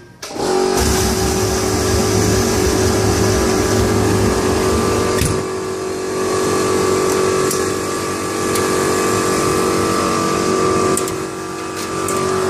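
High-speed vertical mixer starting up and running loaded with granular bentonite and fine powders: a loud, steady machine hum with a whine. A deep rumble underneath drops away about five seconds in.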